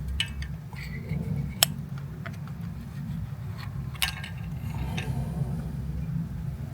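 A few separate sharp metallic clicks and taps from hand tools working on the engine's spark plugs, over a steady low rumble.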